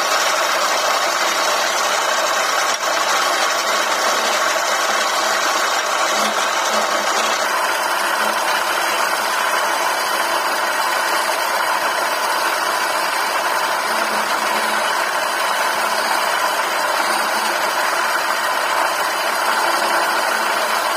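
Wood lathe running while a hand-held chisel cuts into a spinning wooden spindle: a steady motor hum with the hiss and scrape of the tool on the wood. The higher hiss thins out about seven seconds in.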